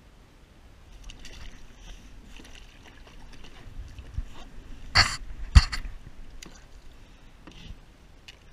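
Water splashing and sloshing at the side of a plastic kayak as a fluke (summer flounder) is let go over the side, with two sharp slaps about five seconds in.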